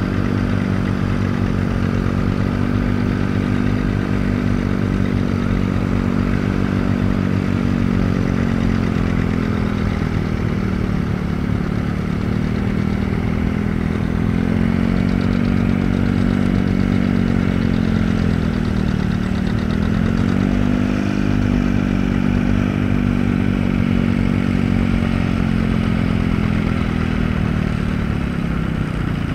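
Antique farm tractor engines running under load as they pull plows through a field. The engine note sags and picks up again a couple of times, near the middle and about two-thirds of the way in.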